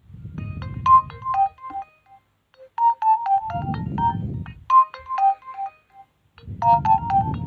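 Nokia 2680 slide mobile phone playing a ringtone through its loudspeaker: a short synthesized melody of beeping notes, repeated three times, with a low buzz under the start of each phrase.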